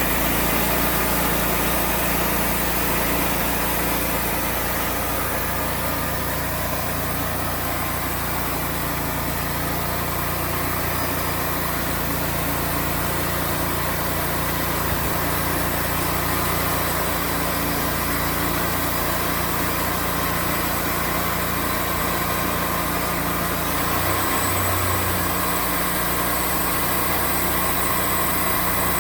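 Engine running steadily, its low note changing briefly about 24 seconds in.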